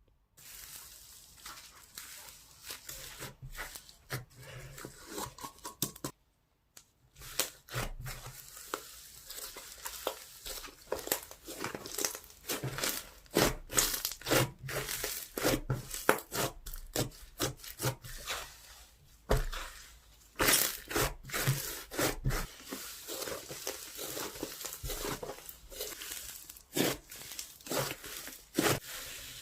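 Slime being squeezed, stretched and poked by hand, giving a dense, irregular run of crackling and popping clicks. The sound drops out briefly about six seconds in.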